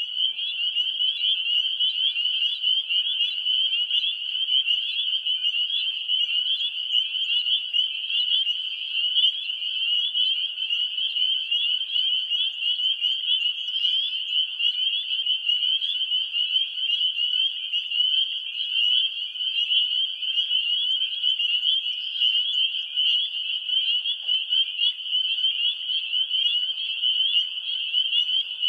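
A dense chorus of many frogs calling at once, a high-pitched continuous trilling that holds steady without pause.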